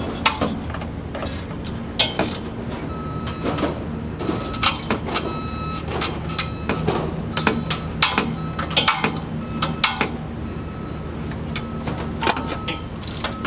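An engine runs steadily under scattered metallic clanks and knocks from hardware being handled. From about three seconds in, a high beep repeats on and off.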